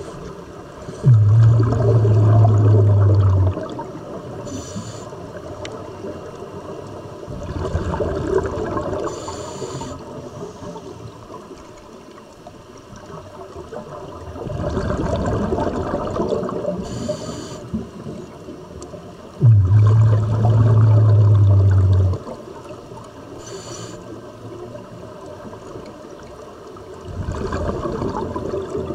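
Scuba diver breathing through a regulator underwater: gurgling bubble rushes from exhalations. Twice there is a loud, low, steady hum about two and a half seconds long that starts and stops suddenly.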